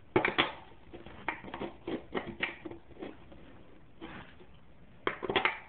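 Irregular light clicks and knocks of handling, a cluster near the start, several scattered through the middle and another cluster near the end.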